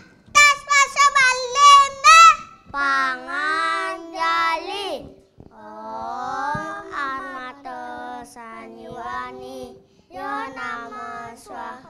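A child singing: a few short, high vocal phrases in the first two seconds, then long held notes with a wavering pitch.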